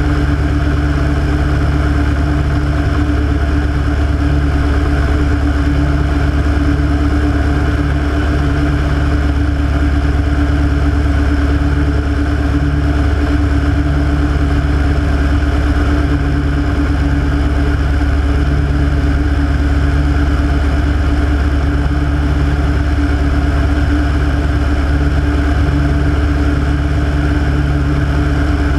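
Rotec R3600 nine-cylinder radial engine of a Hatz Classic biplane running steadily in flight, heard from a camera mounted out on the wing in the propeller slipstream. The engine note holds constant, without revving up or down.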